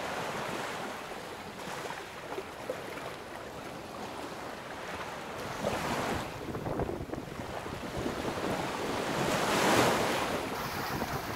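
Sailboat under way at sea: water rushing past the hull and waves breaking, with wind buffeting the microphone. The wash swells twice, about six seconds in and loudest about ten seconds in.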